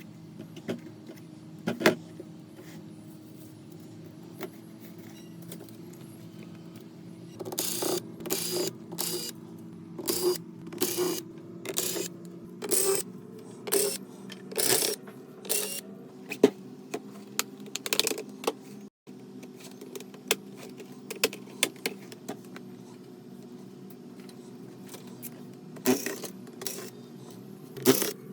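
Sharp clicks and taps of tools and plastic parts being handled during a laptop disassembly. They come in a dense run of about twenty through the middle, with a few single clicks before and after, over a steady low hum.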